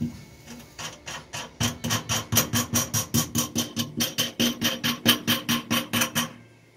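Ratchet wrench clicking in quick, even strokes, about four to five clicks a second, as nuts are run down onto studs through the firewall. The clicking stops abruptly near the end.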